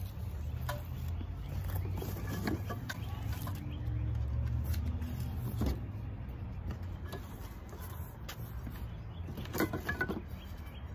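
Metal trellis cross-brace tubes knocking and clinking as they are handled, fitted together and laid down on cardboard: a few scattered knocks, with a cluster of louder clicks near the end. A steady low rumble runs underneath.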